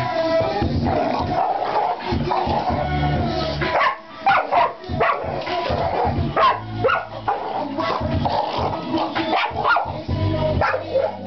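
A puppy barking in short bursts from about four seconds in, over loud background music.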